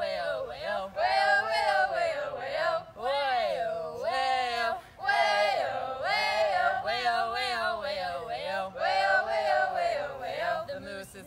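A group of young voices singing a repeat-after-me camp song together, with long drawn-out, wavering 'whoa' sounds.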